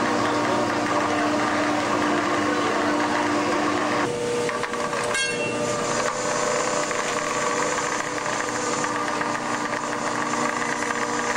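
Steady drone of a fishing vessel's deck machinery while traps are being hauled: a constant mechanical hum over a broad hiss. The hum's pitch shifts about four seconds in.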